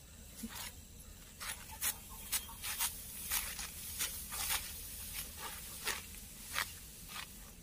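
Ripe rice stalks being cut by hand with a sickle close to the ground: a run of short cutting strokes, about two a second, unevenly spaced.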